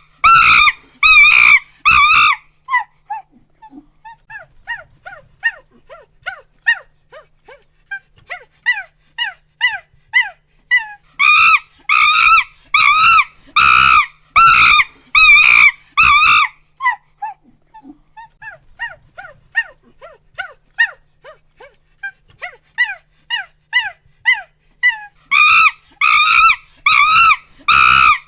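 Monkey screaming and hooting: loud harsh screams, then a run of short hoots, each falling in pitch, a couple a second and growing louder, that breaks into another burst of screams; the hooting run builds again into screams near the end.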